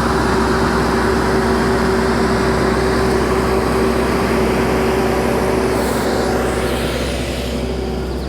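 Takeuchi skid steer's diesel engine running steadily while it works the dirt, growing a little quieter near the end.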